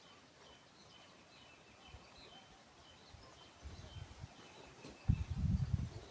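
Birds chirping in short, repeated high notes, with low rumbling bumps about four seconds in and again, louder, near the end.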